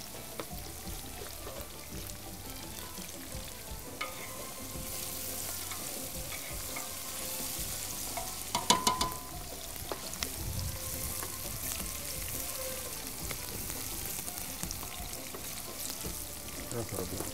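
Sliced onions sizzling as they fry in hot oil, being browned, stirred with a wooden spoon. About halfway through there is a quick run of sharp knocks, the loudest sound, as the wooden spoon strikes the aluminium pot.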